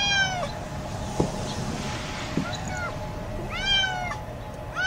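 Domestic cat meowing repeatedly, each meow about half a second long and rising then falling in pitch: one right at the start, another about three and a half seconds in, and a third beginning at the very end. The owner takes the meowing as the cat not wanting to stay in the snow.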